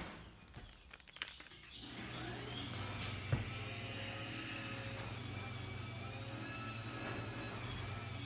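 A steady machine hum that starts about two seconds in, with a single sharp click soon after it begins.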